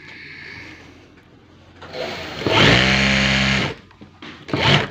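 Electric sewing machine stitching through bedsheet fabric: after a quiet pause it runs for about a second, speeding up then holding steady, and runs briefly again near the end.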